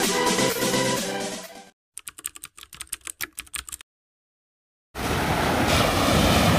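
Electronic background music fades out, then about two seconds of rapid keyboard-typing clicks, followed by a second of silence. About five seconds in, a steady rush of sea surf begins, with wind on the microphone.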